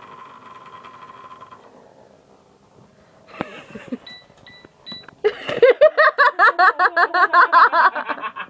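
Electronic sounds from a battery-powered Target dog-on-a-sleigh toy. A short steady tone, then three quick beeps, then a fast run of bright pitched notes, about five a second, that is louder than the rest.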